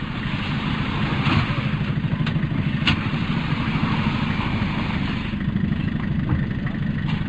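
Hyster forklift's engine idling steadily, with two sharp knocks about two and three seconds in.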